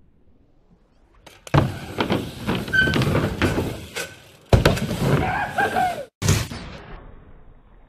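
A BMX bike on a wooden ramp: tyres rumbling over the boards with repeated knocks and thuds, in two loud stretches from about a second and a half in, then a short burst near the end.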